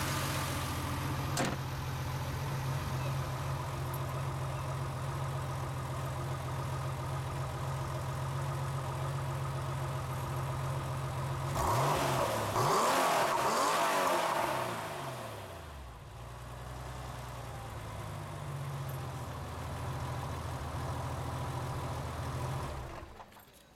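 Porsche 911 (993) air-cooled flat-six with Varioram intake idling steadily. About halfway through it is revved once, sharply, and the revs fall back to idle over a few seconds.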